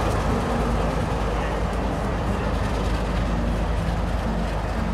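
NSW 44 class diesel-electric locomotive 4490, with its Alco V12 engine running steadily, as it moves along the platform with its carriages.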